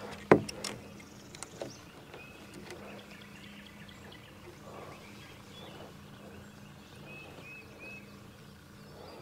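A sharp knock as the fishing rod and tackle are handled on the boat, with a few lighter clicks after it, then faint bird chirps, three short ones in a row near the end, over a steady low hum.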